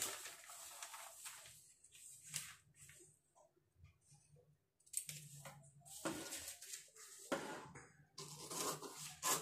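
A large sheet of paper rustling and crinkling as it is lifted, folded and pressed flat by hand, in several separate bursts.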